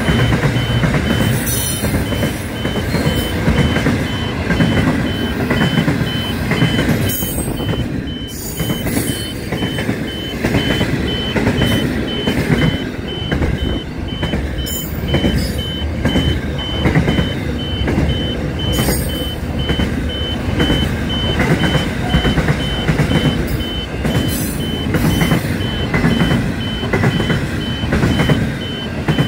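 Freight train's container wagons passing close by at speed: a loud, steady rumble and rattle of wheels on the rails, broken by a few sharp clanks, with a steady high-pitched whine over it.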